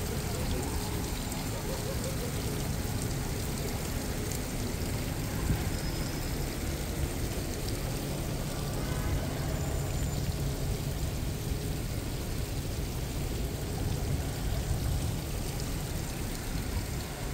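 Fountain water splashing steadily into a stone basin, with a low steady hum underneath.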